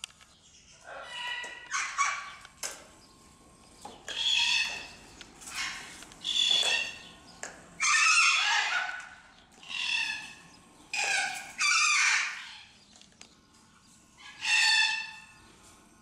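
Parrots calling: about ten loud, harsh screeches come at irregular intervals, each under a second long.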